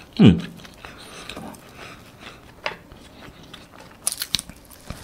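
Close-miked chewing of French toast, with a short hum falling in pitch just after the start. About four seconds in comes a bite into the toast: a quick run of crackly clicks from the crust.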